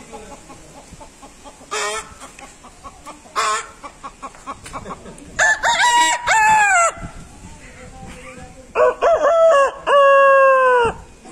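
A man imitating a chicken with his voice: two short clucks, then two long rooster crows, cock-a-doodle-doo, about five and nine seconds in, the second ending on a long falling note.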